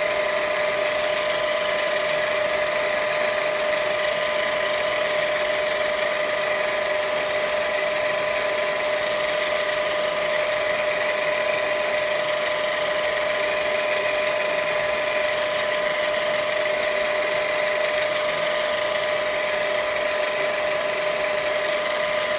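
Myford VMA milling machine running steadily, its motor and spindle giving a constant whine with no change in speed.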